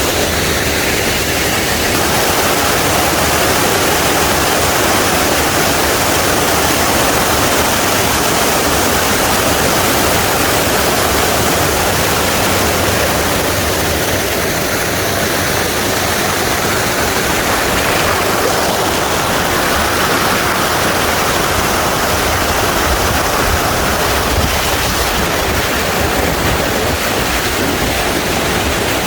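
Waterfall pouring with a loud, steady rush of water.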